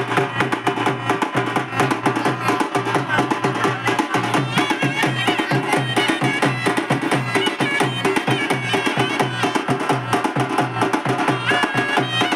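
A local festival band playing a fast, steady drum beat, with a wavering high melody line joining about four seconds in.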